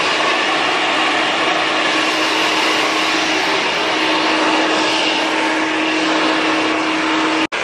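Handheld hair dryer blowing on wet hair: a loud, even rush of air with a steady whine. It cuts off suddenly near the end.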